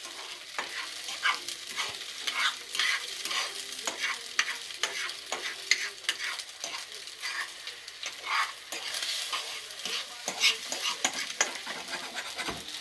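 Beaten eggs frying in a hot pan: a steady sizzle with irregular crackling pops.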